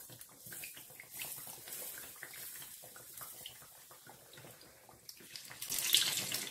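Fricassé dough rolls frying in hot oil in a pan, the oil sizzling and crackling as it is spooned over them so they puff up. The crackle grows louder near the end as a roll is turned with tongs.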